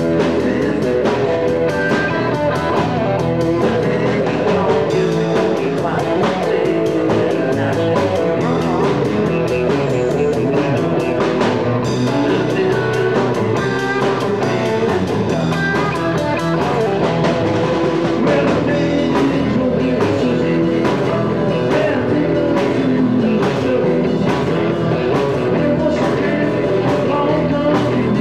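Live rock band playing a song on electric guitars, bass guitar and drum kit, with a steady drum beat.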